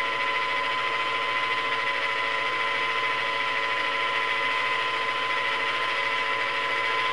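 Janome CXL301 computerised sewing machine's motor running at full speed to wind a bobbin: a steady, even whine at one pitch.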